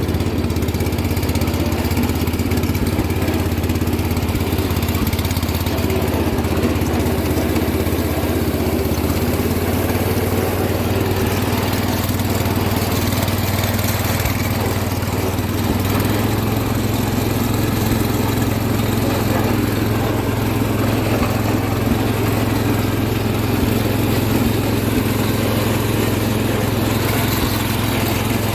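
John Deere garden tractor engine running steadily as the tractor drives in third gear with a 43C front blade mounted.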